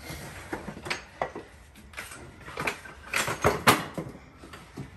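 Furniture and boxes being shifted by hand: a scatter of knocks, clunks and scrapes, with a louder cluster of clatter about three seconds in.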